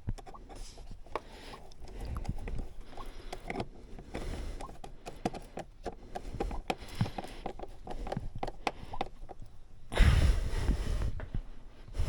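Scattered small clicks and knocks of hands working parts back into place, with a louder scraping rustle about ten seconds in.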